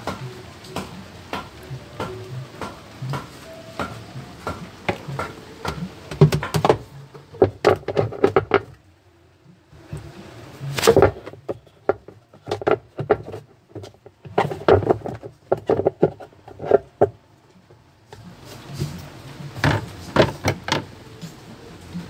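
Hands handling the plastic wash tub and pulsator of a twin-tub washing machine. The sound is irregular clicks, knocks and clatter in clusters, with short lulls about nine and eighteen seconds in.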